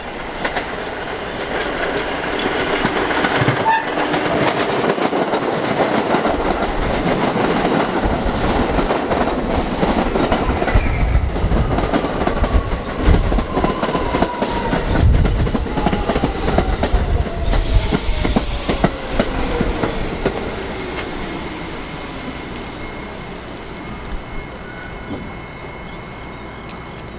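New York City Subway train approaching and passing on outdoor track: a rising rumble full of wheel clacks over the rail joints, with a whine that falls steadily in pitch as it goes by. It then fades to a steady lower hum.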